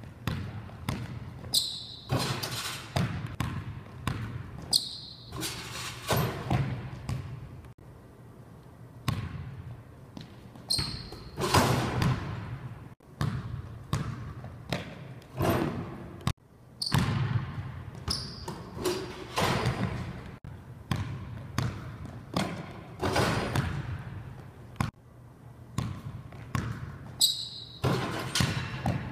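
Basketball dribbled on a hardwood gym floor, bouncing repeatedly with echo from the hall, with a louder slam of a dunk on the rim near the end.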